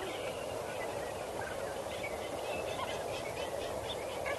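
Waterbirds calling: a rapid series of short, high chattering notes from about two seconds in, over steady background noise.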